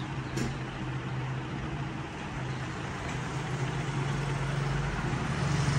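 A steady low hum over a faint even hiss, with two light clicks at the start.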